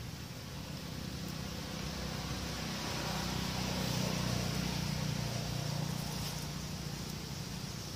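A motor vehicle's engine passing by: a low hum that grows louder to a peak about four seconds in, then fades.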